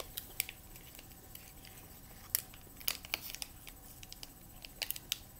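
Light, scattered clicks and crinkles of a thin plastic clamshell food container and small tomatoes being handled, irregular and spaced out.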